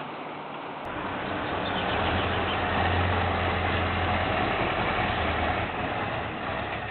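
Heavy truck engine running, with a low hum that builds for a few seconds and then eases off. The sound changes abruptly about a second in, as if from one clip to the next.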